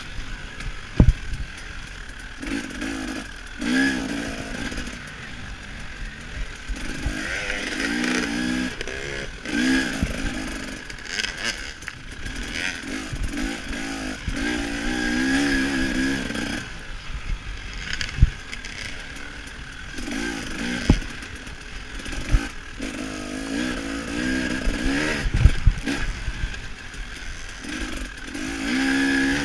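KTM 300 XC-W two-stroke dirt bike engine revving up and backing off over and over as the bike is ridden around a motocross track, heard on board. Sharp knocks from the bike over bumps come through at several points.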